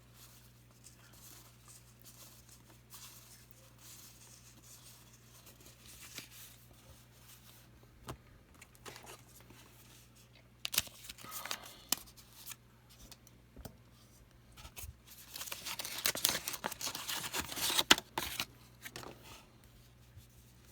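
Trading card pack wrappers being torn open and crinkled by hand: faint rustling at first, a couple of short rips about halfway, then a longer, louder run of tearing and crinkling near the end. A steady low hum sits underneath.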